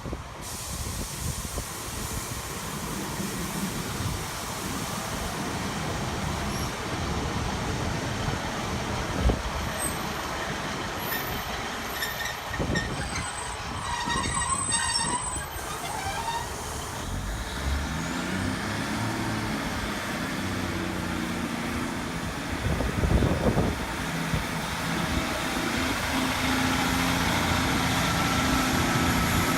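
A train passing with a steady rumble, a run of rhythmic clicks about halfway through, then a diesel engine's steady low drone for the last third.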